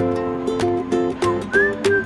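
Background music: strummed chords at an even beat, with a light melody line that slides between notes.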